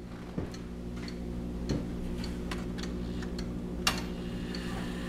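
Sternreiter Hummel wall regulator clock's German 8-day mechanical movement ticking steadily as the pendulum swings, a little under two ticks a second. Near the end there is a louder click as the hands are turned by hand on the dial. There are also two soft low knocks in the first two seconds.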